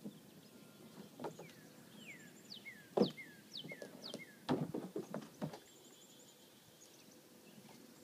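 A bird calling: a series of short whistled chirps, each falling in pitch. A loud knock comes about three seconds in, and a quick cluster of knocks follows around the middle.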